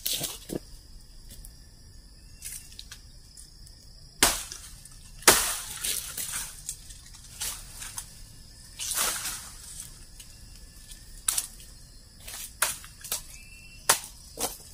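Machete hacking and trimming a young wild salak palm stem: irregular sharp cuts and swishes, the loudest about four and five seconds in and again about nine seconds in.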